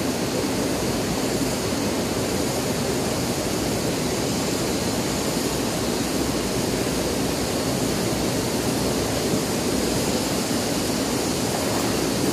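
Steady rushing of flowing river water, an even hiss and rumble with no distinct events in it.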